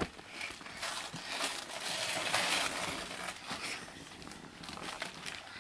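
Gift-wrapping paper crinkling and rustling as a present is unwrapped, a run of crackly rustles loudest about two to three seconds in.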